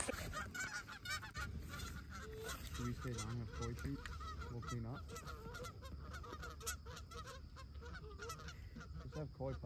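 A flock of Canada geese honking and clucking in many short, overlapping calls, fairly faint, with a few fuller honks a few seconds in.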